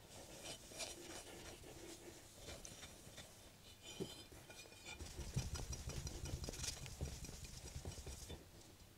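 A cotton cloth rubbing and buffing metal polish off a polished alloy engine cover from a Royal Enfield Classic 350 by hand: soft, rapid scrubbing with small clicks as the part is handled. The rubbing grows faster and louder from about five seconds in, then eases just after eight.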